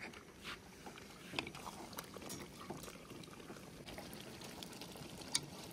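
Thick tomato chicken karahi gravy bubbling in a steel pot over a gas flame, with a wooden spatula stirring through it. The sound is faint, with scattered small pops and clicks and one sharper click near the end.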